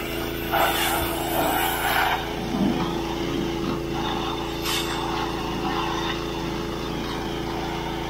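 Heavy-equipment diesel engine running steadily, with a few short louder bursts of noise over it, the loudest about half a second to two seconds in.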